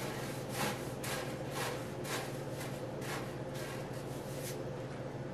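Tissue paper rustling and crinkling in short repeated strokes, about two a second, as it is spread out inside a stuffing balloon, over a faint low steady hum.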